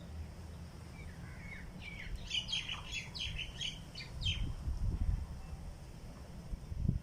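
A small bird chirping: a quick run of short, sliding high notes for a couple of seconds. A low rumble runs underneath, and there is a thump near the end.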